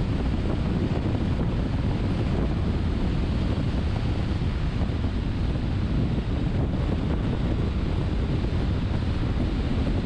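Steady road and wind noise of a car travelling at expressway speed: tyres on the pavement and rushing air, a constant low noise that does not change.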